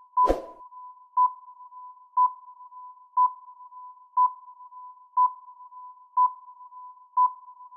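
Quiz countdown-timer sound effect: a steady electronic tone with a louder beep once a second, eight beeps in all. A brief swish about a third of a second in.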